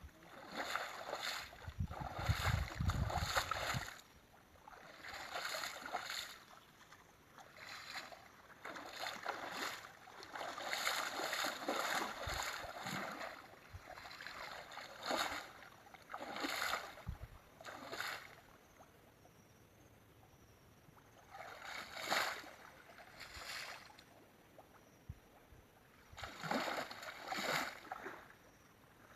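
Water splashing and sloshing in irregular bursts with quieter gaps between them, with a low rumble in the first few seconds.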